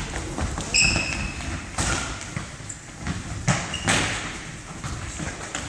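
Indoor football in play on a wooden gym floor: a series of ball kicks and thuds, with short high squeaks of shoes on the floor about a second in.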